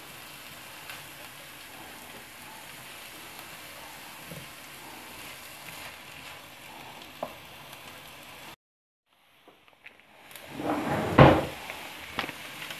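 Chopped onions and cumin seeds sizzling faintly in hot oil in a nonstick pan. Past the middle the sound cuts out for about a second, then a louder burst of stirring with a silicone spatula through the frying onions, the loudest sound, comes near the end.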